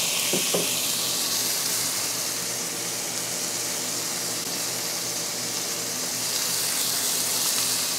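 Barbecue-sauced chicken breasts sizzling steadily on the hot grill plate of a Ninja Woodfire grill, a continuous hiss with a low steady hum underneath.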